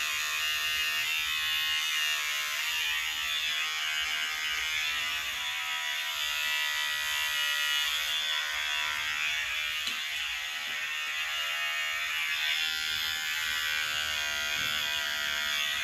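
Cordless T-blade hair trimmer running with a steady buzzing whine as it trims short hair on the scalp, cutting off at the very end.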